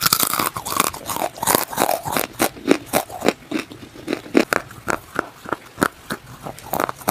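A person chewing and biting brittle slate pieces right at a lavalier microphone: a quick, uneven run of sharp crunches that starts suddenly.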